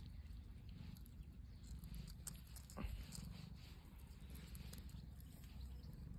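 Long-haired domestic cat purring, a low steady pulsing rumble, with one short thump about three seconds in.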